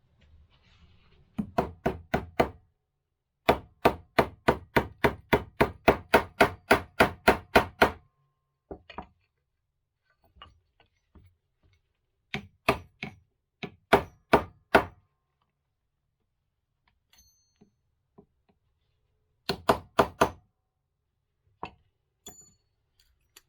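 Hammer blows ringing on metal, struck in bursts of rapid blows about four to five a second: a long run of about sixteen, then shorter runs of four or five, with a few single taps between.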